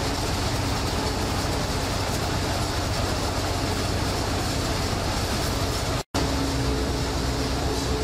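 Steady din of fish-processing plant machinery and conveyor belts running, a constant mechanical noise with a low hum. It cuts out for an instant about six seconds in, then carries on with a deeper hum.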